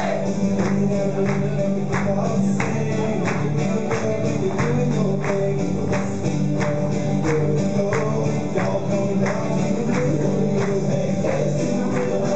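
Upbeat country song with a steady, fast, even beat.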